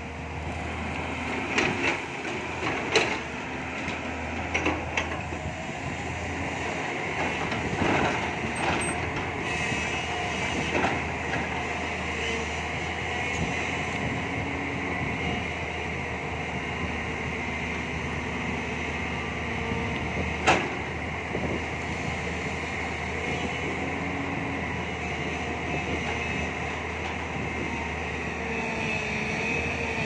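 Tracked excavator's diesel engine running steadily while it digs, with the steel bucket clanking and scraping on rock and soil several times, the sharpest clank about twenty seconds in.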